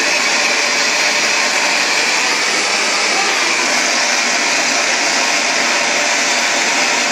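Hand-held LPG gas torch burning with a large open flame, a loud, steady hiss that does not change, as it heats a copper boiler end toward red heat for silver soldering.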